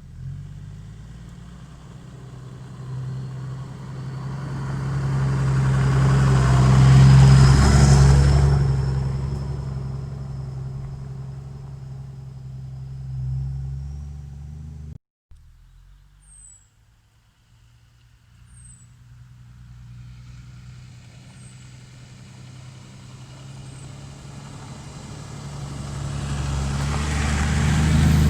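Toyota Land Cruiser HJ61's 12H-T turbodiesel six running on its exhaust, in two takes split by a hard cut about halfway. In each the rumble builds to a loud peak and then eases. In the first a thin high whistle rises slowly, the turbo whistle that the old muffler-less pipe let through.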